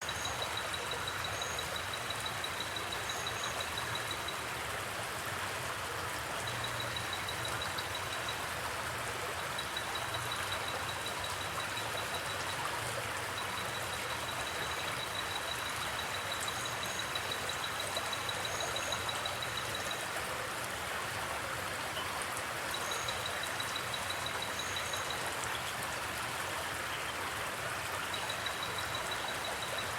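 Steady rush of a flowing river, with crickets trilling in runs of a few seconds and short, high double chirps recurring every couple of seconds.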